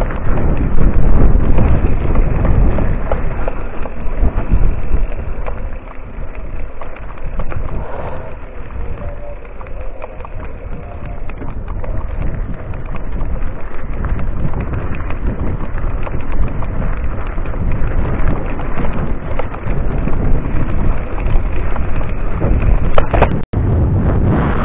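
Mountain bike riding a dry dirt singletrack, heard as a loud rumbling mix of wind and trail noise on the riding camera's microphone. It swells and fades, and cuts out for an instant near the end.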